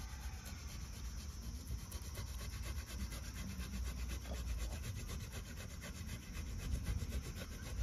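Boiled potato being grated on a perforated metal hand grater: fast, regular rasping strokes.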